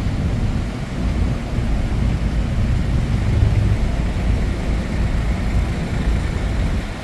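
Steady low rumble of city street traffic with an even hiss of rain over it.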